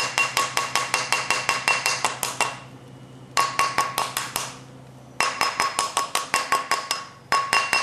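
A mallet beating a copper wire ring on a steel ring mandrel in quick runs of blows, about seven a second, broken by three short pauses, the mandrel ringing with each blow. The ring is being stretched up a size and its shank work-hardened.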